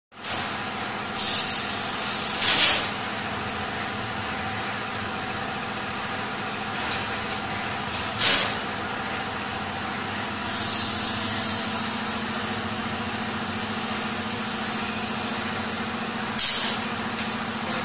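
Compressed air hissing in several short bursts, with one longer hiss about ten seconds in, as the pneumatic cylinder of a model three-way tipping trailer is worked to tilt the bed. A steady hum runs underneath.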